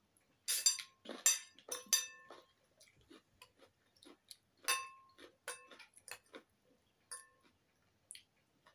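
A metal fork and spoon clinking against a ceramic bowl during eating: a series of short clinks, some ringing briefly. Several loud ones come in the first two and a half seconds, another about five seconds in, and softer taps and scrapes come between.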